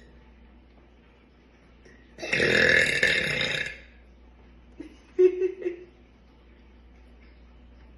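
A woman's long, loud burp lasting about a second and a half, brought up by fizzy kombucha. About a second after it ends come a few short, sharp sounds.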